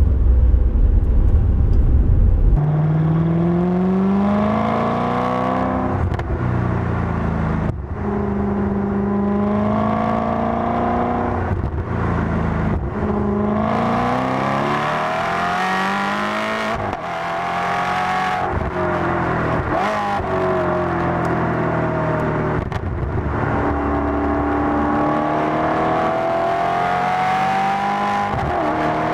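Maserati GranSport's 4.2-litre V8 heard at its twin tailpipes, the back boxes modified with their perforated pipes swapped for solid ones: the engine note climbs repeatedly under acceleration and drops back at each gear change. The first couple of seconds are a low rumble.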